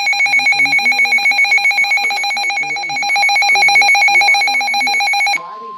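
Midland weather radio's alert alarm for a severe thunderstorm warning: a loud, shrill, rapidly pulsing electronic siren of several tones. It cuts off abruptly about five seconds in, leaving a single steady tone, the NOAA Weather Radio warning alarm tone.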